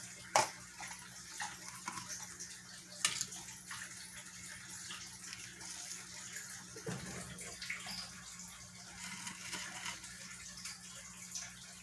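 Faint handling of a clear plastic deli cup: a couple of sharp light clicks and a few small taps over a steady quiet hiss and low hum.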